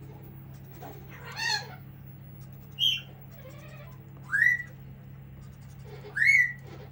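A pet parrot giving four loud, shrill calls a second or two apart, the last two rising and then falling in pitch.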